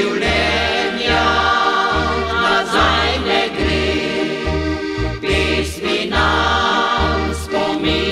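Folk band music: several voices singing together over diatonic accordions, with a steady bass note on each beat.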